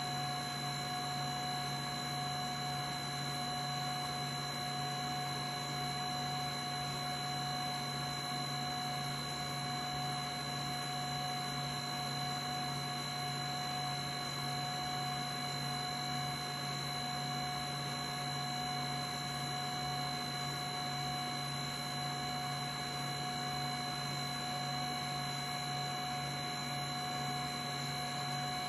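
HumminGuru ultrasonic vinyl record cleaner running in its drying stage: a steady hum with a constant whine of several pitches over an even rush of air, unchanging throughout.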